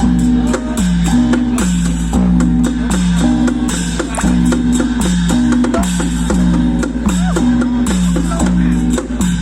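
Loud music with drums and a plucked string instrument, a short phrase that steps down in pitch repeating about once a second over steady drum strokes.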